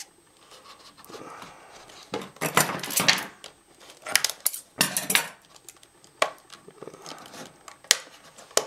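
Clear hard-plastic packaging and its cardboard sleeve being handled and pried apart, giving irregular sharp clicks, crackles and rustles, busiest about two to three seconds in.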